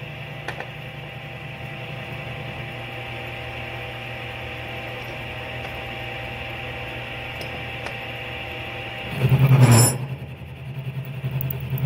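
Milling machine running, its end mill cutting a slot in thick steel plate with a steady hum. Near the end the sound swells into two louder rumbling surges, a couple of seconds apart.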